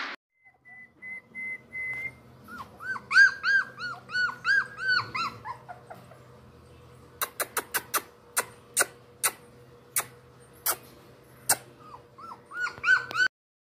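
A puppy whimpering in a run of short, high whines that rise and fall, about three a second, then a string of about ten sharp clicks, with a few more whines near the end.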